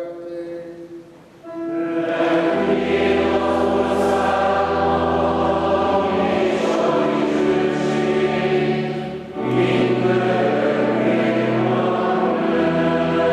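Choir singing a slow liturgical piece in long held chords over a steady low note. It comes in about a second and a half in, with a short break a little past the middle.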